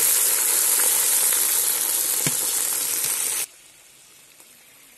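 Pork liver frying in hot oil in a cast-iron kazan: a loud, even sizzle, with a single knock about two seconds in. The sizzle cuts off abruptly about three and a half seconds in, leaving only faint background sound.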